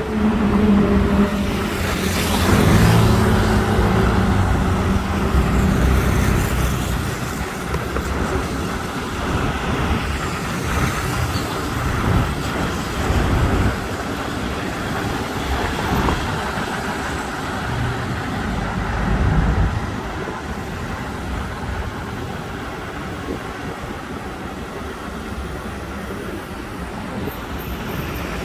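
Busy road traffic: engines and tyre noise from passing cars and trucks, with one vehicle's engine hum loudest in the first few seconds.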